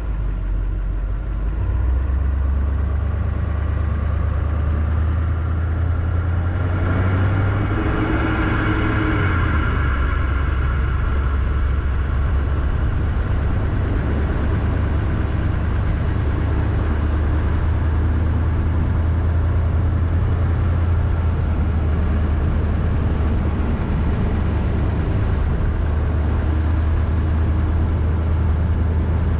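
Car's engine and road noise during a slow drive: a steady low drone that grows louder about two seconds in as the car moves off, swells for a few seconds, then settles into an even run.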